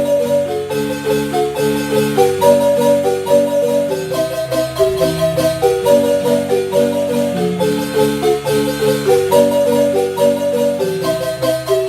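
Marimba playing music continuously, several notes sounding together over a lower bass part.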